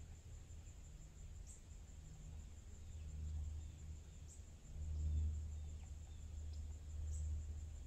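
Outdoor ambience: a low, uneven rumble, a steady high insect drone that pulses about every second and a half, and a few faint bird chirps.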